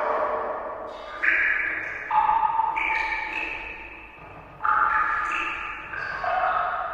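Water-drop sound effect: six echoing, pitched plinks at different pitches, each starting sharply and ringing away slowly, about one a second.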